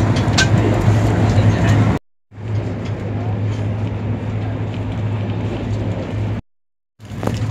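Steady running noise of a moving passenger train heard from inside the carriage, with a constant low hum under it. The sound cuts to silence briefly twice.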